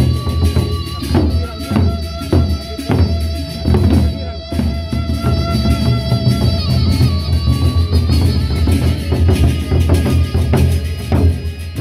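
A Sasak gendang beleq ensemble playing: large double-headed barrel drums beaten with sticks in a dense, driving rhythm, with held ringing tones sounding over the drumming.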